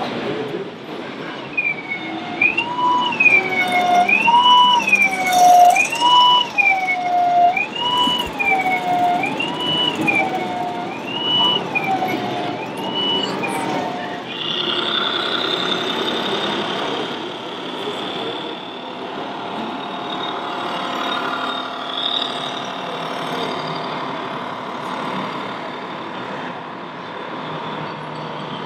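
Two-tone siren from an RC model's electronic sound module, its pitch swinging up and down about every second and a half, stopping about halfway through. After that, a steady hum and hiss.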